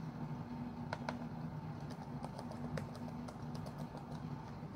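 Computer keyboard typing: slow, uneven keystrokes spelling out a word, over a low steady hum.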